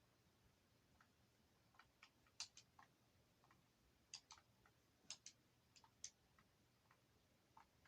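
Near silence with faint, short clicks at irregular intervals, bunched in the middle.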